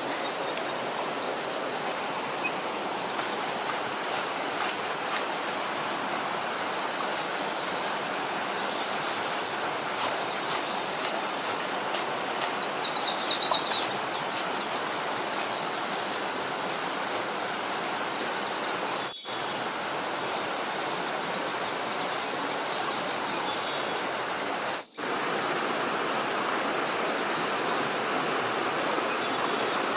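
Stream water rushing steadily, with small bursts of high chirping over it now and then. The sound drops out briefly twice, about two thirds of the way in and again a few seconds later.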